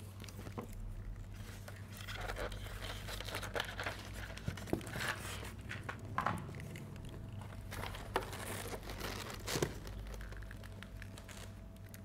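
Scattered light clicks and plastic rustles from handling a die-cast robot action figure as its joints are set into a standing pose, over a steady low hum.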